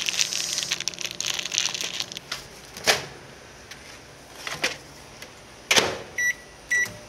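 Plastic food packaging crinkling, then a few knocks and two short electronic beeps about half a second apart from a microwave oven's keypad.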